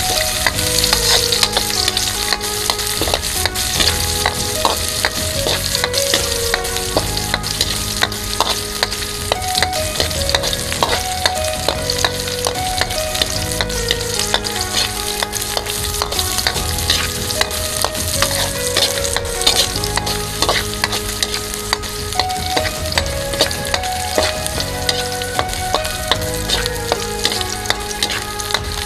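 Food sizzling in hot oil in a pan while being stirred, with frequent sharp clicks and scrapes of a spatula against the pan.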